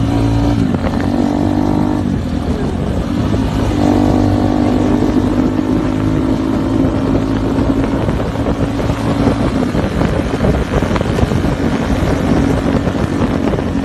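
Small motorcycle engine running at fairly steady cruising revs, with a couple of short dips in pitch in the first few seconds, heard from a moving bike amid heavy wind and road noise.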